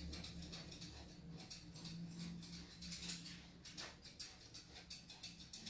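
Grooming scissors snipping the hair on a dog's muzzle: quick, light, repeated cuts, several a second. A faint low steady hum runs underneath.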